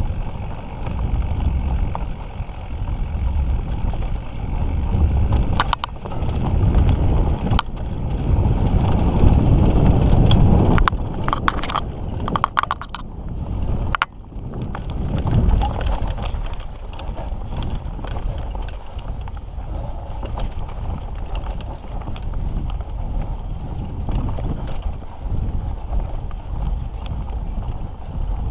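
Mountain bike being ridden down a dirt trail: wind rumble on the microphone with tyre noise, and the bike's chain and frame rattling and knocking over bumps. The rumble is loudest about nine seconds in.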